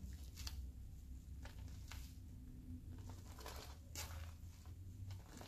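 Faint squishing and soft irregular crackling of very foamy fluffy slime, made with whipped toothpaste, as it is stretched and squeezed by hand, over a low steady hum.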